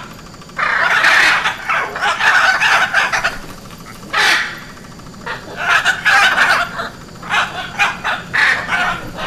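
Hyacinth macaws calling with harsh squawks in irregular bursts: a long run of calls about half a second in, a single call about four seconds in, then shorter clusters through the rest.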